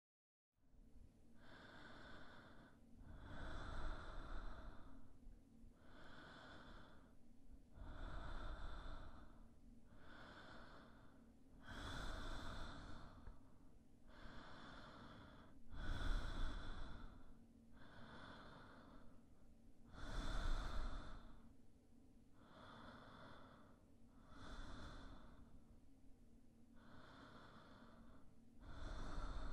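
Slow, regular human breathing close to the microphone, starting about half a second in: a breath every two seconds or so, with every other breath louder.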